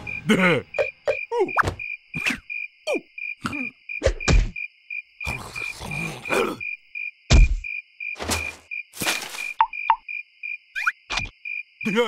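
Cartoon larva character's short squeaky vocal noises and grunts, several with a falling pitch, broken by a few thumps. Steady cricket chirping pulses underneath, about three times a second.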